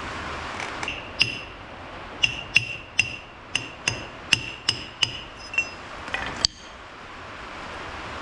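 Hammer tapping a 2-inch stainless steel piece used as a driver to knock a new oil seal flush into a portal gear box's output shaft housing. About a dozen sharp, ringing metal taps come at an uneven pace over about five seconds.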